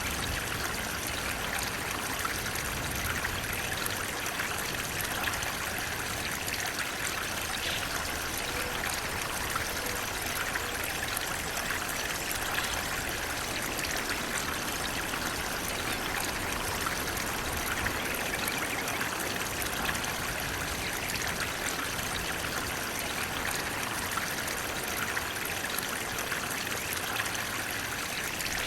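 Flowing water running steadily, an even continuous rush with no pauses or changes.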